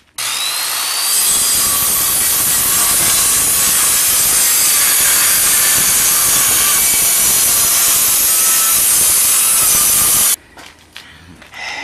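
Skilsaw corded circular saw starting with a rising whine, then cutting through a wooden board in one steady cut, and stopping abruptly near the end.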